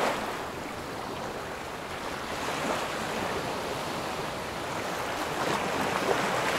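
A steady rushing noise with no distinct tones, swelling a little toward the end.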